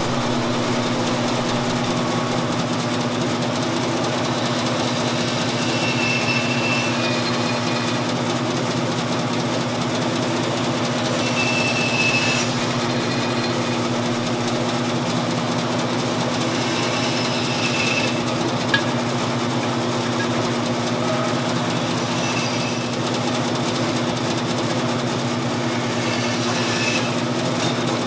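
Vertical band saw running with a steady motor hum, its blade crosscutting a wooden board into short blocks: each cut adds a brief higher whine, about every five or six seconds.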